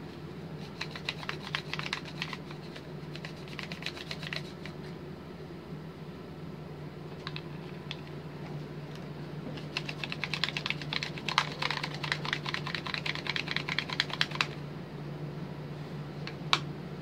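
Plastic bead roller slid back and forth by hand, its two halves rattling with rapid clicks as a polymer clay ball rolls between them. The clicking comes in two spells, from about a second in to about four seconds, and again from about ten to fourteen seconds.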